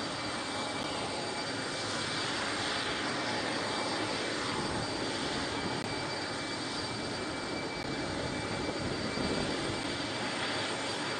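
Jet aircraft engine noise: a steady rush with a thin high-pitched whine held throughout.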